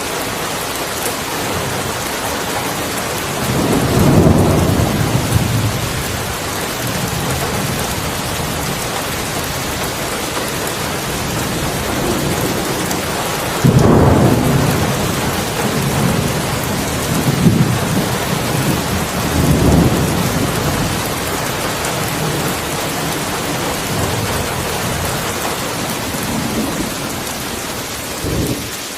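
Heavy steady rain with rolling thunder: a long rumble builds about 4 s in, and a sharper, louder crack-and-rumble about 14 s in rolls on through several smaller swells.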